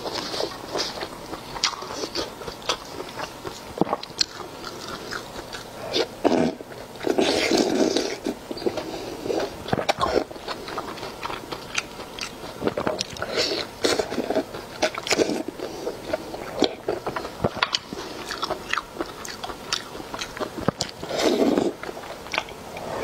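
Close-miked eating sounds of cold pot skewers soaked in spicy chili oil: biting and chewing with many quick, irregular wet mouth clicks. There are a few longer, louder stretches, one in the middle and one near the end as a piece is bitten off the skewer.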